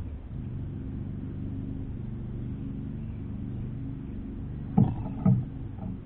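A steady low hum runs throughout. Near the end come two sharp knocks about half a second apart, as a small bird lands on the bird feeder.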